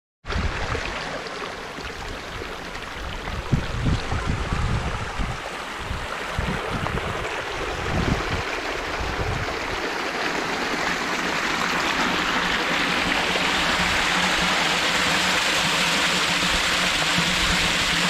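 Water running along a concrete irrigation channel and gushing from a pipe outlet into a concrete tank. The rushing and splashing grows louder and steadier over the second half.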